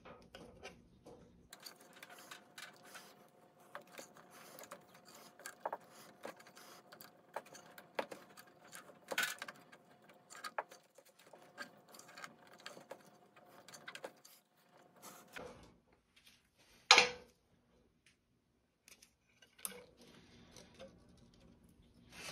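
Vinyl electrical tape being pulled off the roll and wound around a pipe, a faint irregular crackling of small clicks, then one sharp click about 17 seconds in.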